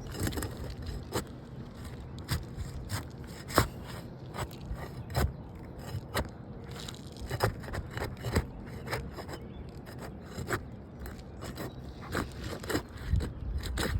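Asphalt roof shingles being pried up to break their adhesive seal strips: irregular scraping with many sharp cracks and ticks.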